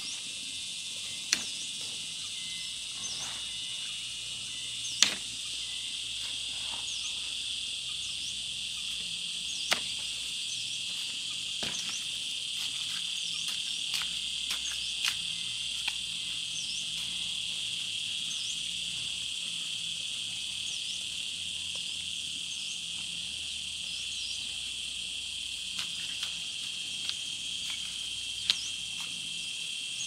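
Steady high-pitched chorus of insects, with a short high chirp repeating every second or two. A few sharp knocks stand out, the loudest about five seconds in.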